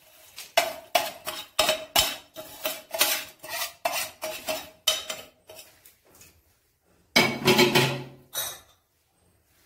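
Metal spoon scraping and tapping the inside of a stainless-steel bowl, a quick run of clinks with a ringing note. About two-thirds through comes a single louder, duller clatter lasting about a second.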